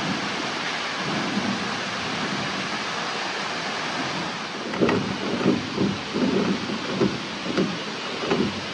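Manai Falls pouring into the gorge pool: a steady rush of falling water. From about five seconds in, a run of irregular low thumps sounds over it.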